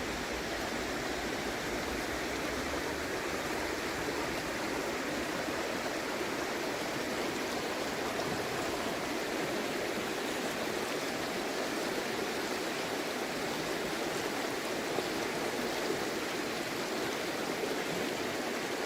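Creek water running steadily, an even rushing noise with no change.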